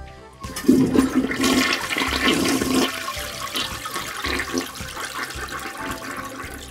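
A toilet flushing. The rush of water starts about half a second in, is loudest over the first two seconds, then drains away more quietly.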